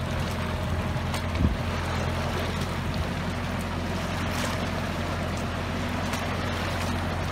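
Antonio Carraro TRX9900 compact tractor's diesel engine running steadily under load as it drags a heavy log through mud, with a brief knock about one and a half seconds in.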